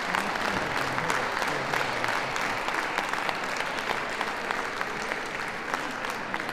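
Audience applauding, a dense patter of many hands clapping that eases off near the end.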